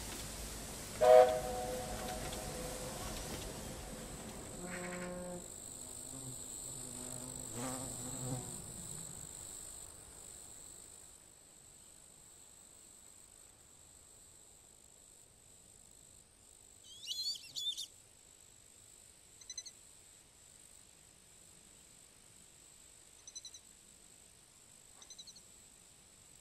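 Ambient river soundscape: a steady, high-pitched insect drone, with a few short bird chirps in the second half. About a second in there is a brief, loud whistle-like tone, and a low hiss fades away over the first ten seconds.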